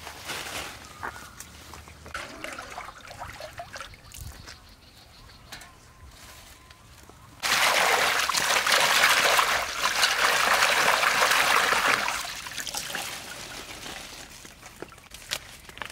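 Faint rustling and snapping of leaves being picked by hand. About seven seconds in comes a sudden run of splashing and sloshing, lasting about four seconds, as hands swish leafy greens in a metal basin of water. It gives way to softer dripping and rustling as the wet leaves are lifted out.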